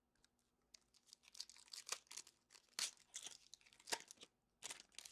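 Foil wrapper of a hockey card pack being torn open and crinkled by hand: an irregular run of crackling rustles with several sharper rips.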